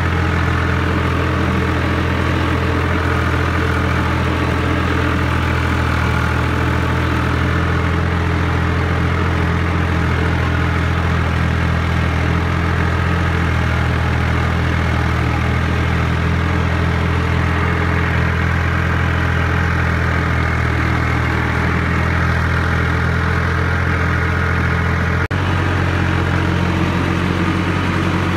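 Tractor diesel engine running steadily under load while pulling a tillage implement through wet ground, heard from on the tractor. The note holds level throughout and changes abruptly once, near the end.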